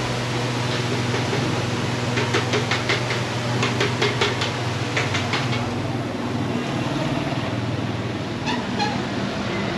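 Steady street noise with a low engine-like hum, broken by a run of quick clicks, about four a second, from about two to five seconds in, and a few more near the end.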